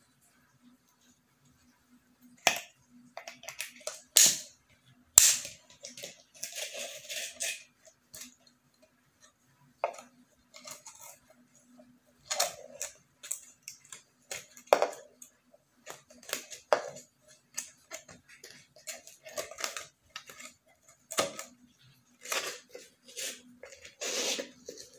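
A thin plastic drink bottle being handled, with irregular sharp clicks, crackles and rustles as a sponge and a mop-string wick are pushed into its cut-off top.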